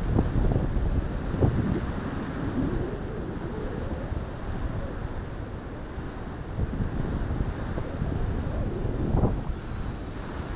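Gusty wind rumbling on the microphone over the hiss of surf, with a faint high whine from the RC A-10's twin electric ducted fans sliding down in pitch in the second half.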